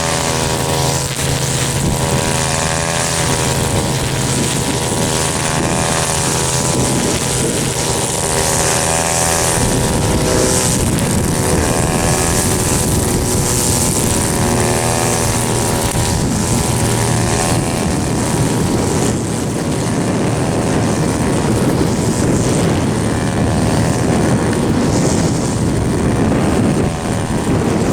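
Cessna 206 single-engine piston propeller airplane running close by, a loud steady propeller drone. Its pitched engine tone wavers for about the first ten seconds, then gives way to a broader rushing noise.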